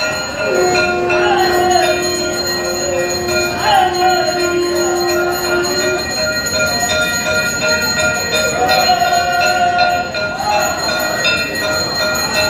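Temple bells ringing continuously for the mangala aarti, with a few voices rising over them. A long steady tone is held for about five seconds near the start.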